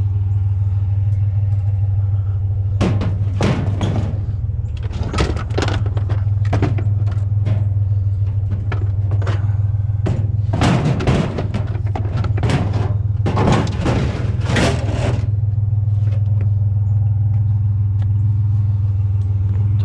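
A vehicle engine idling steadily under a low hum, with a run of clanks and rattles from about three to fifteen seconds in as scrap metal is picked up and handled.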